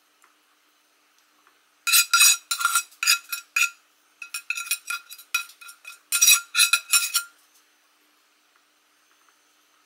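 Metal utensil clinking and scraping against a dish while ground meat is spooned and spread in a layer over peppers: quick runs of sharp, ringing strikes from about two seconds in until about seven seconds, with a brief pause in between.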